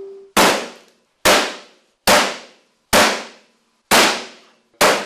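Meat cleaver chopping through a plucked wood pigeon onto a plastic chopping board. There are six sharp strikes about a second apart, each ringing briefly as it dies away.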